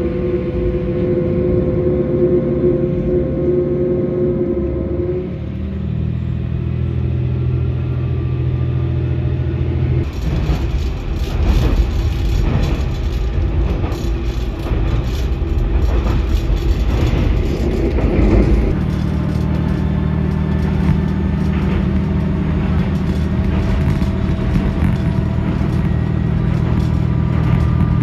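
Inside a diesel railcar running along: a steady engine drone with wheel and rail noise. The drone shifts in pitch a few seconds in. For several seconds in the middle the running noise is rougher and louder, then the steady drone returns.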